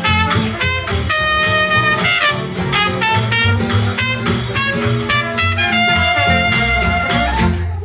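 Live small jazz band playing swing: trumpet and trombone lines over upright bass and acoustic guitar keeping a steady beat. The music stops suddenly near the end.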